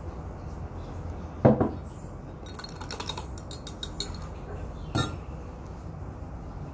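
Glass and dishware clinking: one sharp ringing clink about a second and a half in, a quick run of small clicks around three seconds, and another clink near five seconds, over a low steady hum.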